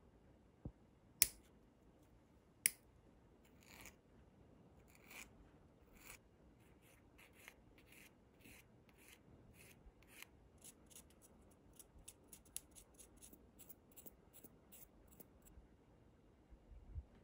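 Side cutters snip a thin metal pin twice, two sharp clicks about a second and a half apart. Then a small flat file scrapes the cut end in short strokes, slow at first and getting quicker, before stopping near the end.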